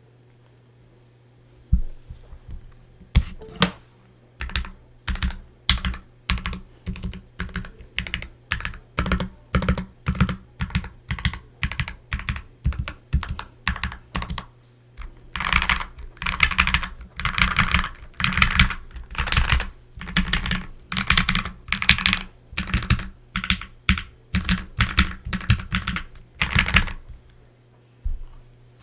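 Typing on a Glorious GMMK mechanical keyboard fitted with lubed Gateron G Pro Black linear switches and PBT keycaps, tape- and foam-modded. Keystrokes start about two seconds in at a moderate, even pace. About halfway through they become fast, continuous typing, then stop shortly before the end.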